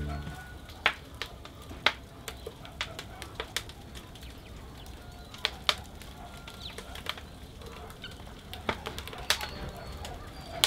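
Wood fire crackling in a brick wood-fired oven: irregular sharp pops and snaps over a low steady rumble.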